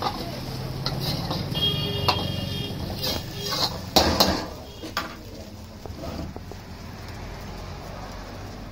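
Steel ladle scraping and clanking against a steel wok while egg fried rice is stir-fried, with a few sharp metal knocks, the loudest about four seconds in.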